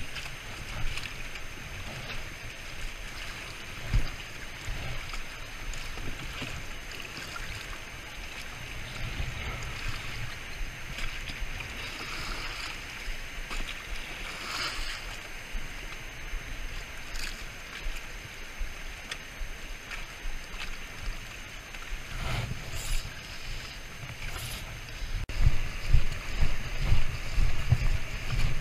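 River current rushing past a drifting raft, with wind buffeting the microphone in gusts that grow much stronger near the end. A few brief knocks stand out over the water noise.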